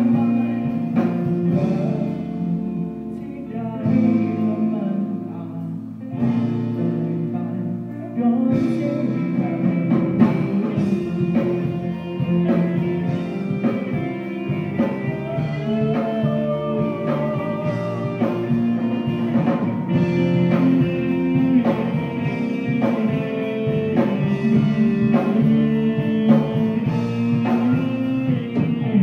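Live rock band playing a song: electric guitars, bass guitar and drum kit.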